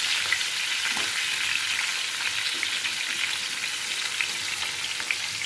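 Parshe fish frying in hot rice bran oil in a frying pan: a steady sizzle with small crackles.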